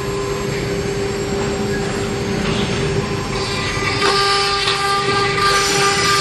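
CNC plastic-cutting machine running: a steady spindle whine, with hissing cutting noise that grows louder about four seconds in.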